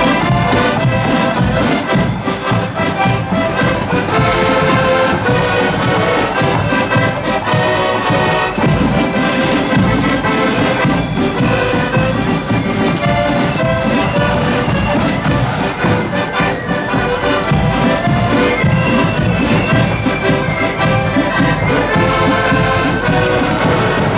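Marching accordion band playing a tune together on piano accordions, many held notes sounding at once over a steady marching beat.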